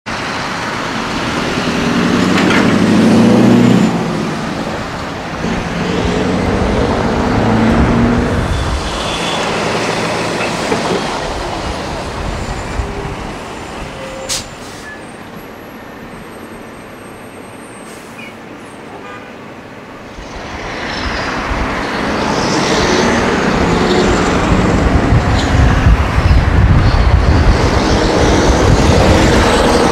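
Scania V8 truck engine through an open straight-through exhaust (a howler pipe), with a deep, loud exhaust note as it pulls away. It drops to a quieter stretch for several seconds in the middle, then builds loud again near the end as the truck accelerates.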